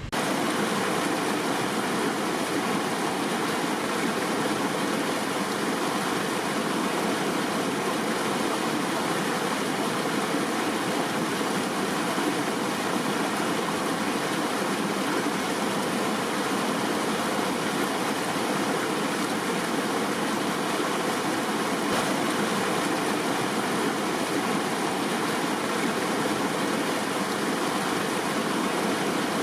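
River water flowing, a steady rushing noise that cuts in suddenly at the start.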